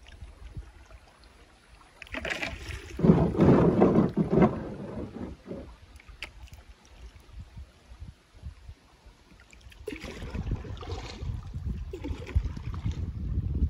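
Kayak moving down a shallow, gravelly river: a loud burst of water and hull noise about two seconds in that lasts a couple of seconds, then quieter water, then wind on the microphone and moving water building near the end.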